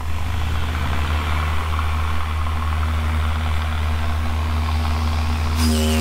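A small engine runs steadily, its pitch rising over the first second or so, with a hiss above it. About five and a half seconds in, the SS President Coolidge's whistle starts blowing: a loud, steady, deep tone with many overtones.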